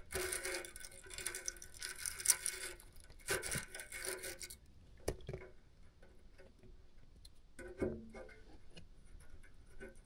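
Brisk scrubbing and rubbing strokes, a plumbing fitting being cleaned by hand, in three or four bursts over the first four seconds or so. Then faint clicks and light handling.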